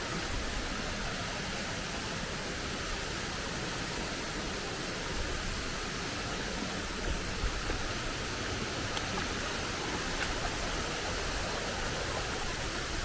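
Steady rushing of a waterfall, an even hiss of falling water, with a few faint knocks around the middle.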